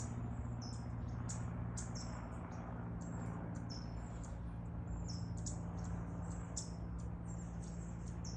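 Small songbirds calling: short, high-pitched chirps, many dropping slightly in pitch, repeated about twice a second, over a steady low hum.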